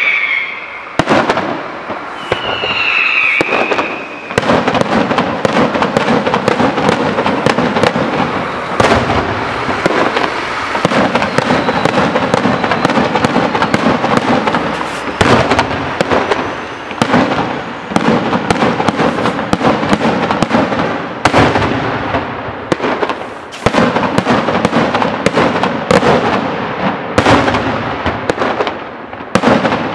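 Daytime fireworks: a dense, near-continuous barrage of bangs and crackling, with louder booms standing out every few seconds and a couple of brief whistles in the first few seconds.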